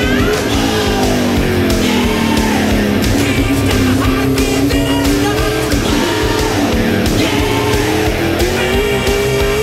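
Loud rock music with a singing voice and guitar.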